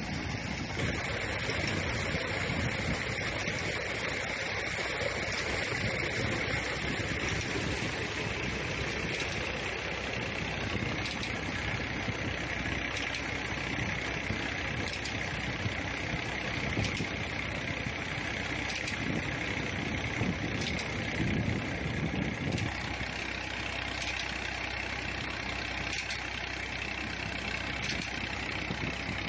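Massey Ferguson 240 tractor's three-cylinder diesel engine running steadily under load, driving a tubewell pump through a shaft and belt, mixed with the steady gush of water pouring from the delivery pipe into a concrete basin.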